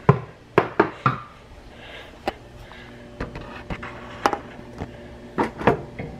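Dishes and the camera being knocked about at a stainless-steel kitchen sink: about ten sharp, unevenly spaced knocks and clatters of plastic and metal.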